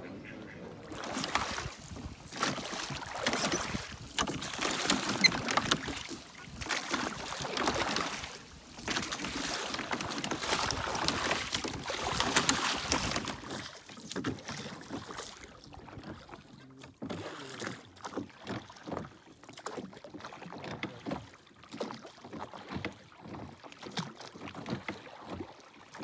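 Rushing water and wind noise from a boat crossing the lake. It is loud and gusty for the first half, then quieter and choppier.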